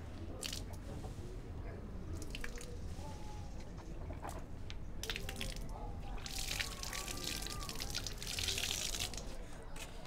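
Water scooped from a concrete tank with a plastic bowl and splashed out in several short pours, the longest and loudest from about six to nine seconds in, over a low steady hum.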